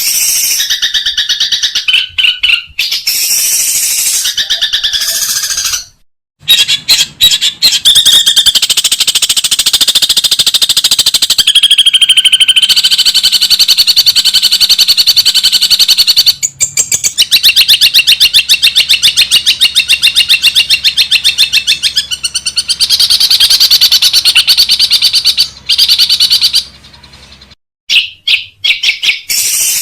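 Long-tailed shrike (cendet) giving long runs of loud, rapid-fire rattling chatter, the fast 'ngekek' calls of a bird training recording, broken by a few short pauses.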